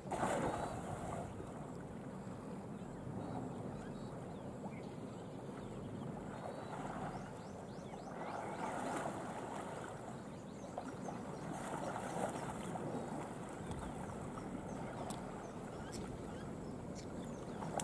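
Lake water splashing and sloshing as Sri Lankan elephants wrestle and play half-submerged. It swells every few seconds as they push against each other.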